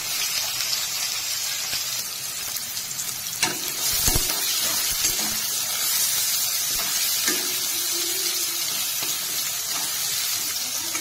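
Sliced onions sizzling steadily in hot oil in a kadai. A metal spatula stirs them, scraping and knocking against the pan a few times around three to four seconds in.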